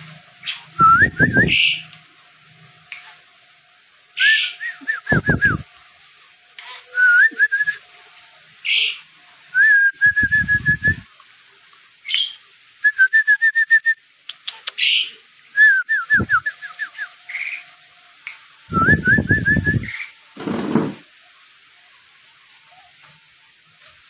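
Sooty-headed bulbul giving short strings of quick, rising whistled notes, repeated every few seconds with sharper chirps between them. Several loud, low rushing bursts break in among the calls.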